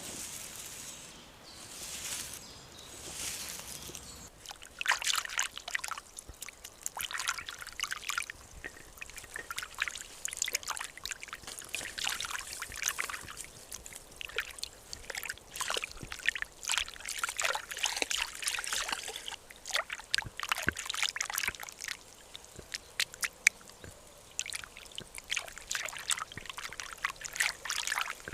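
Water trickling and sloshing in irregular crackly bursts, after a few soft swishes at the start.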